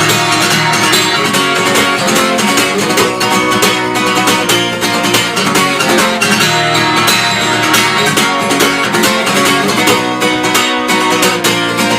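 Acoustic guitar strummed fast in the galop pattern (down, up, down, over and over), mixing accented ringing strokes with muted, choked ones.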